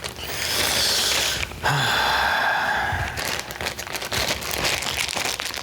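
Unboxing packaging being handled: a breathy hiss, then a drawn-out tearing or peeling sound about two seconds in, followed by light crinkling and small clicks.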